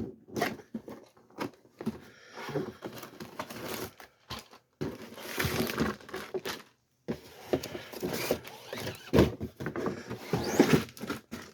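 A cardboard model-kit box being opened and its contents handled: irregular rustling of paper and plastic, with scattered sharp taps and knocks and a few short pauses.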